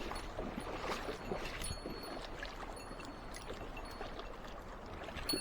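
Mountain stream water running and splashing over rocks, a steady babble with many small irregular splashes.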